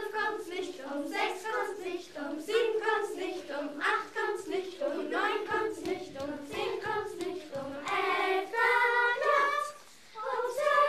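A group of children singing a dance song together in rhythmic syllables, with longer held notes shortly before a brief break near the end, after which the singing starts again.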